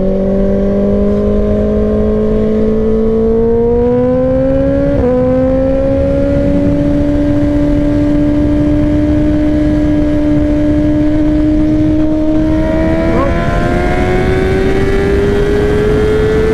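Suzuki GSX-R600 sportbike's inline-four engine running under way through loud pipes, its note holding steady and slowly climbing, with short breaks in the note about five and thirteen seconds in. Heavy wind rush on the microphone underneath.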